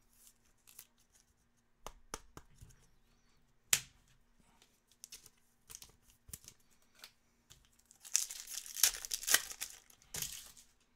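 A 2022 Topps Chrome Formula 1 card pack wrapper being torn open and crinkled, loudest from about eight seconds in. Before that come a few scattered light clicks and taps of cards being handled.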